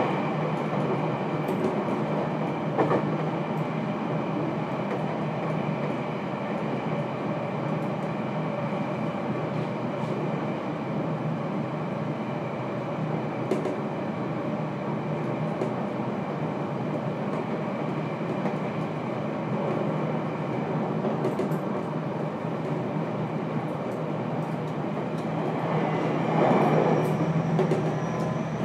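Running sound of a JR Kyushu 811-series electric train heard from inside the motor car: a steady rumble of wheels and motors on the rail, with a few short clicks and a louder stretch near the end.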